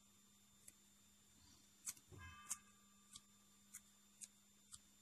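Near silence: a faint steady hum with soft, faint clicks, about two a second in the second half, and a brief faint tone a little after two seconds.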